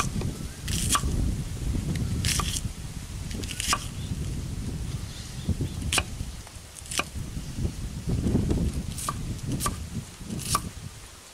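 Kitchen knife chopping an onion on a wooden cutting board: sharp taps at an uneven pace, about one a second, over a low rumble.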